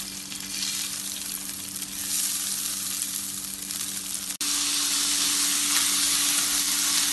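Soaked, washed and drained rice sizzling in hot ghee in a brass uruli as its water fries off, with the rice then being turned over with a wooden spatula. The steady hiss cuts out for an instant a little past halfway and comes back slightly louder.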